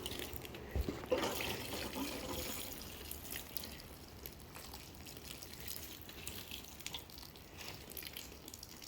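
Faint water running and dripping, with a couple of light knocks about a second in.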